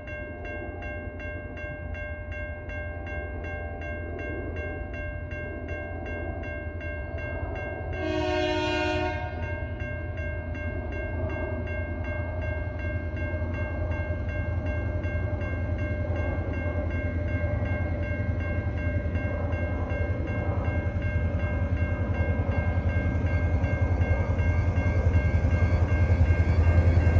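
Level crossing bell ringing steadily while a TasRail diesel freight train approaches. The locomotive sounds one horn blast of about a second and a half around eight seconds in. A low engine rumble grows steadily louder toward the end.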